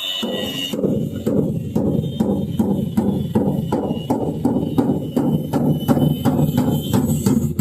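Background music with a steady drum beat, about three beats a second.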